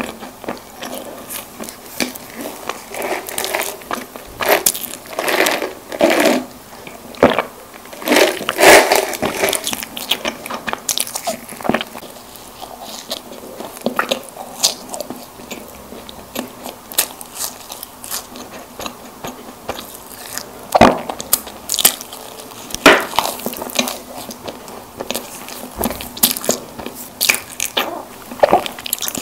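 Close-miked ASMR biting and chewing of soft packaged snack cakes, an irregular run of mouth clicks and bites with louder bites now and then.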